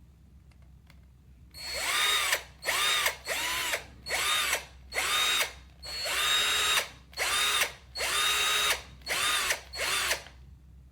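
Black+Decker 12V MAX cordless drill/driver run in about ten short trigger pulls: each time the motor whines up in pitch and winds back down.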